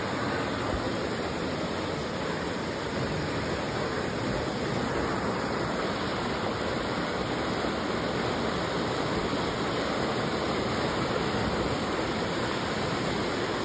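Fast-flowing floodwater rushing down a flooded street: a steady, unbroken rush of water.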